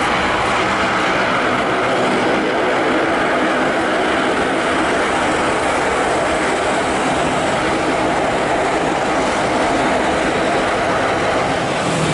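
Jet airliner engines running with a loud, steady rushing noise that holds at the same level throughout.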